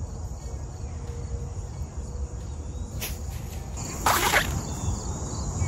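Steady high drone of insects over a low wind rumble on the microphone, with a short rush of noise about four seconds in.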